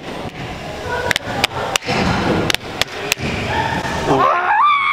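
A scatter of sharp slaps and clacks, then near the end a man's voice rising into a long, held whoop.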